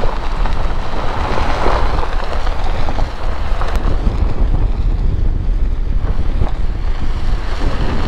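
Wind buffeting the microphone of a camera mounted on the outside of a car, driving along a gravel road. It is a steady, loud rumble, with a hiss of road and tyre noise underneath.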